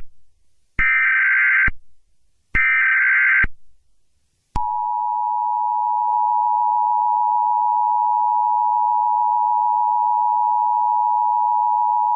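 Emergency Alert System flash flood warning: two short screeching data bursts, then about a second of silence and the long steady two-tone attention signal, which begins about four and a half seconds in.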